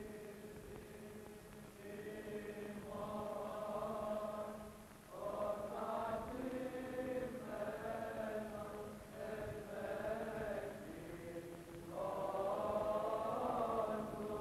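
Byzantine chant sung by a choir: a slow melody on long held notes over a steady low drone. New phrases enter about three, five and twelve seconds in, the last one the loudest.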